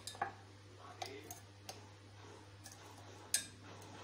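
A few light clinks of a metal spoon against a cup, with one sharper clink near the end: a stock cube being stirred into a little water to dissolve it. A steady low hum runs underneath.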